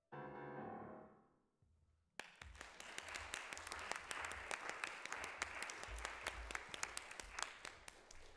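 A final chord on an August Förster grand piano is struck and dies away over about a second and a half. After a short pause the audience breaks into applause, which eases off near the end.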